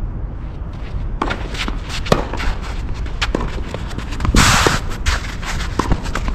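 Tennis point being played: sharp pops of racket on ball mixed with footsteps on the court, over a steady low rumble. About four seconds in there is a brief loud burst of hiss.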